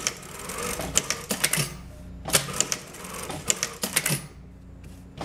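Sun Special SS-9000S-7-Y industrial direct-drive lockstitch machine sewing short seams in denim. Groups of sharp mechanical clicks and clacks come roughly every second, from its automatic thread trimmer and presser-foot lifter working at the end of each short seam.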